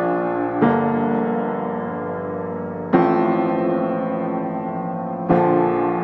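Background piano music: slow, sustained chords, a new one struck about every two and a half seconds and left to ring.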